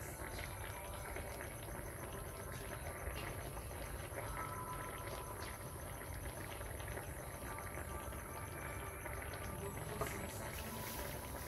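Fish bubbling in broth in a wok on a portable gas burner: a steady simmer with fine crackling. There is a single short click about ten seconds in.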